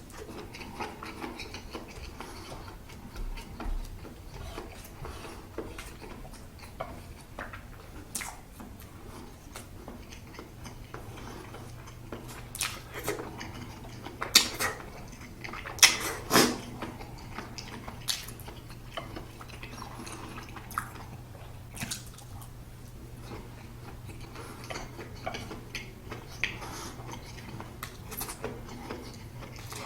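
Close-miked eating sounds: a person chewing and slurping food with small wet clicks throughout, and a few sharp louder clicks about halfway through.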